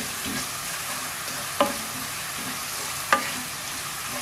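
Wooden spatula stirring onions and spice powders frying on low heat in a nonstick pan: a steady sizzle with scraping strokes. The spatula knocks sharply against the pan twice, about a second and a half in and again about three seconds in.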